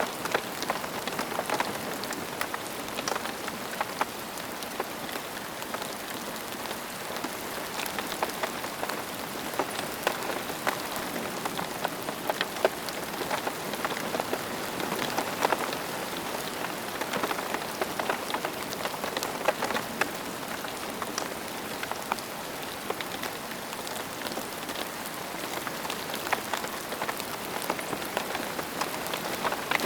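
Steady rain falling onto a hard surface, a constant hiss dotted with many individual drop impacts.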